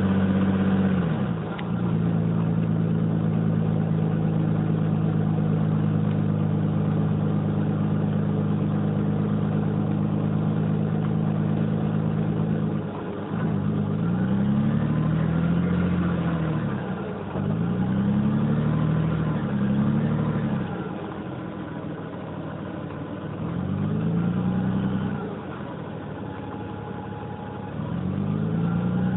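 Cummins LTA10-B252 turbocharged straight-six diesel in a Dennis Dragon double-decker bus, running steadily for about the first thirteen seconds. It then revs up and drops back in four surges of acceleration, with quieter spells between.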